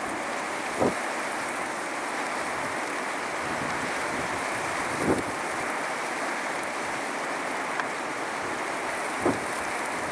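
Steady rush of wind and distant surf from a rough sea, with brief gusts buffeting the microphone three times: about a second in, near the middle and near the end.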